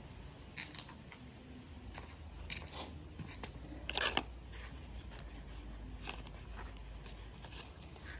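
Small scattered clicks and rustles of parts being handled, with a short louder rattle about four seconds in, over a low steady hum.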